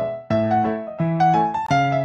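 Background piano music: struck notes and chords in an even rhythm, roughly two a second.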